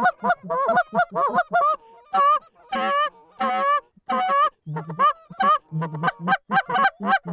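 Canada goose call blown in a rapid string of honks and clucks, each note breaking sharply from a low tone to a high one, with a couple of short pauses. It is the hunter working a flock of geese to bring them into the decoys.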